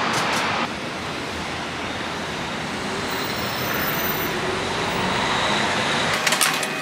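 City traffic noise: the steady hum of road vehicles. It drops in level about half a second in, and a few sharp clicks come near the end.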